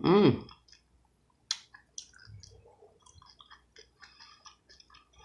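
Close-miked chewing of crunchy fried rainbow trout tail: irregular small crackles and wet mouth clicks, with one sharper click about a second and a half in.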